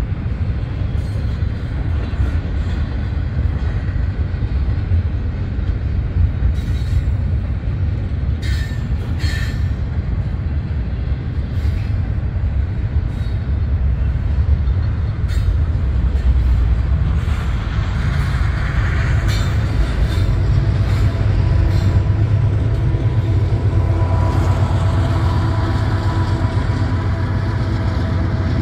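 Union Pacific double-stack container train rolling past: a steady low rumble of steel wheels on rail with scattered clicks and clanks. A thin high tone comes in near the end.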